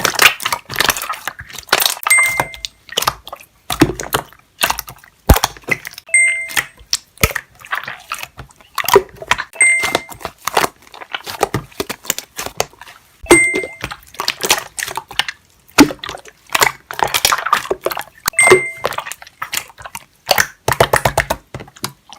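Slime being squeezed and pressed, giving dense wet clicks, crackles and pops, with a short beep every few seconds.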